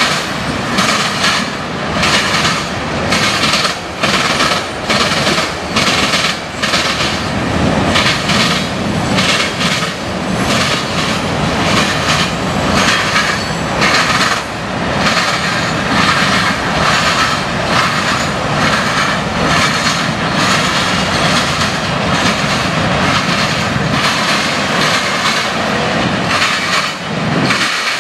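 Freight cars of a passing CSX mixed freight train rolling by: a steady rumble of steel wheels on the rails, broken by frequent clacks and bangs.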